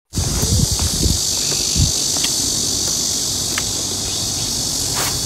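A steady, continuous chorus of insects, crickets or cicadas, buzzing at a high pitch. A few low splashes of water come in the first two seconds.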